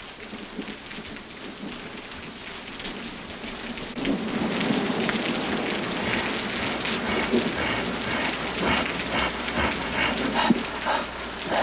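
Storm sound effect: steady heavy rain with thunder rumbling, growing louder about four seconds in.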